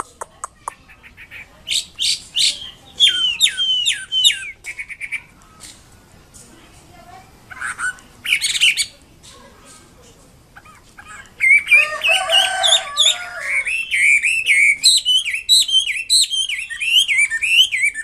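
Chinese hwamei singing a loud, varied song: short bursts of quick slurred whistles and trills with pauses between them. From about two-thirds of the way in it breaks into a long unbroken run of rapid rising and falling whistled phrases, starting with a harsher, rasping phrase.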